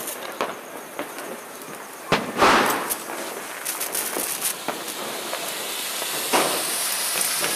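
An anar (flower pot fountain firework) is lit and catches, spraying sparks with a steady high hiss that starts about two seconds in and grows louder. A few sharp firecracker bangs stand out, the loudest one around the time it catches.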